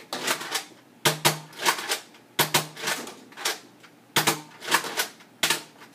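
Nerf Rough Cut 2x4 pump-action dart blaster firing repeatedly. Sharp pops come mostly in close pairs as the trigger is pulled halfway and then the rest of the way, with lighter plastic clacks in between as the pump is worked back and forth.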